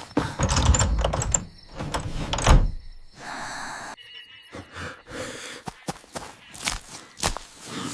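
Cartoon sound effects: a quick series of knocks and thumps over a low rumble, then a brief pause and more sharp clicks.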